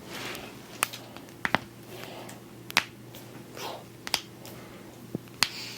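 Finger knuckle joints popping as a chiropractor adjusts them one by one: about half a dozen sharp, separate cracks spaced roughly a second apart, with faint handling noise between them.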